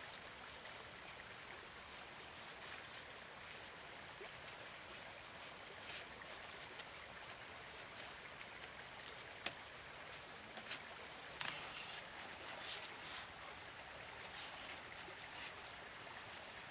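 Thin bamboo strips clicking and rustling as they are handled and laid out on grass, over a faint steady hiss. One sharp click a little past halfway, and a short run of louder rustles and taps about two-thirds in.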